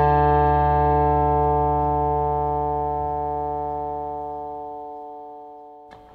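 Background music: a single held chord that slowly dies away, fading almost to nothing near the end.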